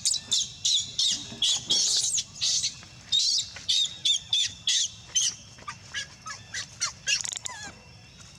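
Monkey crying loudly: a rapid string of shrill, high-pitched screams, about two or three a second, that turn to fainter cries after about five seconds.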